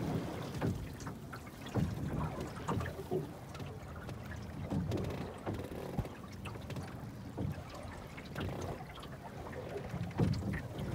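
Water splashing and slapping irregularly against the hull of a small Melonseed sailing skiff under way in a chop, with wind rumbling on the microphone.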